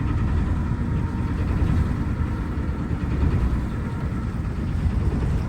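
Steady low rumble aboard a small yacht: the inboard engine ticking over in neutral, mixed with wind buffeting the microphone.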